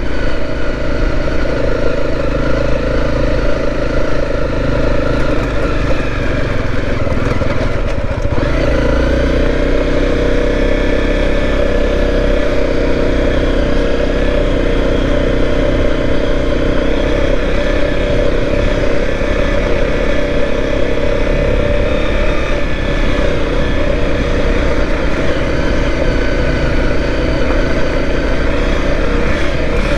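Dual-sport motorcycle engine running under way on a gravel road, with low wind rumble on the helmet-mounted microphone. The engine note changes about eight seconds in.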